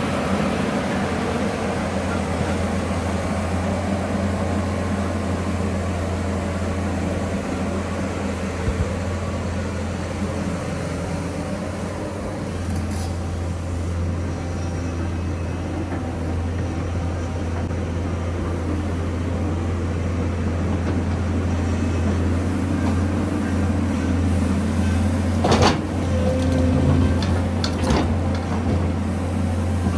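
Excavator's diesel engine running with a steady low drone, heard from inside the operator's cab, with a few sharp knocks near the end.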